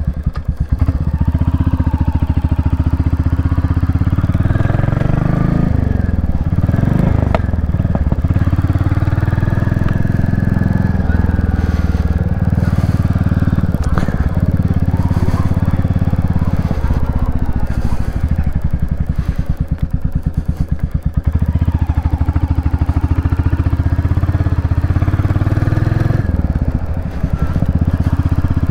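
Royal Enfield Classic 350's single-cylinder engine running under way, its revs rising and falling as the motorcycle rides along. The level dips briefly twice, about two-thirds of the way in and again near the end.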